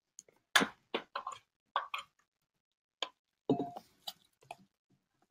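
A series of short knocks and clicks as a plastic food processor bowl is lifted off its base and chopped cranberry relish is spooned out of it into a ceramic serving dish.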